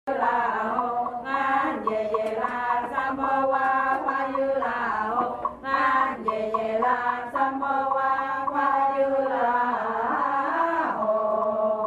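Voices chanting a mantra together in long, steady held notes that step from pitch to pitch.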